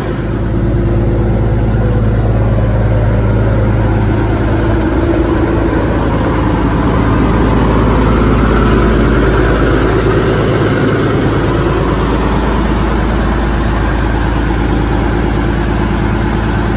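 Caterpillar 3406 inline-six diesel of a Peterbilt 359 idling steadily through 8-inch straight-pipe exhaust stacks, a deep, even rumble.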